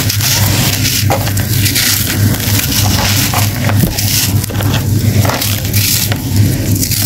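Hands crushing and crumbling lumps of compacted sand and letting loose sand run through the fingers in a plastic tub: dense, gritty crunching and crackling. A steady low hum runs underneath.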